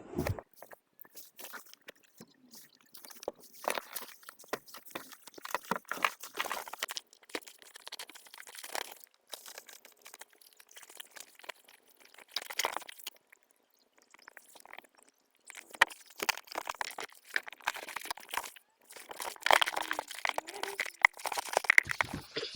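Irregular close-up rustling and crunching, in uneven bursts with short pauses.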